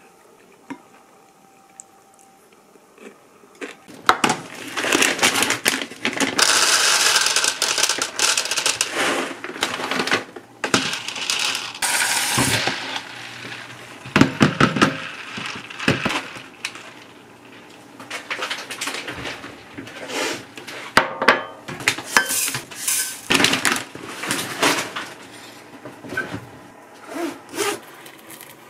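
Kitchen prep noises: a plastic container and bowls handled and set down on a counter, with many knocks and clatters. A few seconds of steady hiss come in about seven seconds in.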